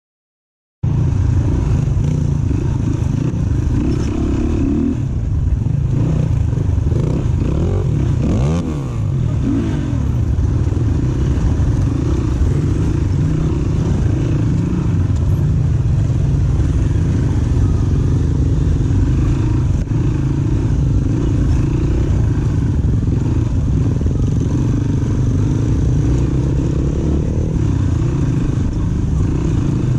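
Dirt bike engine running steadily while being ridden off-road. It cuts in abruptly about a second in, after silence, and its pitch swings up and back down briefly about eight seconds in.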